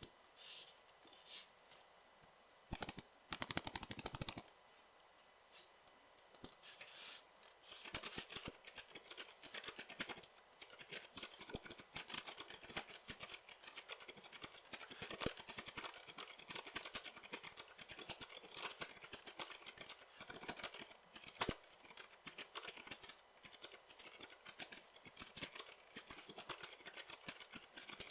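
Typing on an FL CMMK MK870 custom keyboard with Gazzew Boba U4 silent switches, a stainless steel plate and PBT keycaps. A few scattered keystrokes come first, then a brief, louder flurry of clicks about three seconds in, then steady continuous typing from about eight seconds in.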